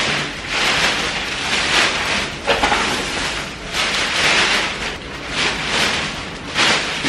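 Large plastic bag rustling and crinkling as it is handled, in a string of loud swells that rise and fade.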